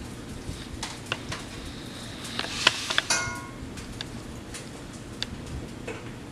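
Hot frying oil crackling and popping in scattered snaps. About three seconds in comes a brief clatter of kitchenware, ending in a short ringing clink.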